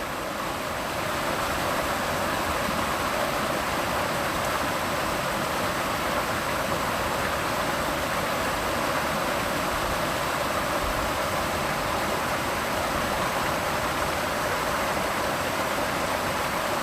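Waterfall rushing: a steady, even noise of falling water, strongest in the middle range with little deep rumble.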